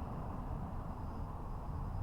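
Steady low rumble of outdoor background noise, even throughout, with no bell strikes.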